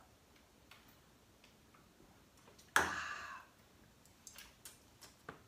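Light clicks and taps of shot glasses being handled, then about three seconds in a sudden loud breathy exhale as the tequila shot goes down, followed by a few short knocks as glasses are set down.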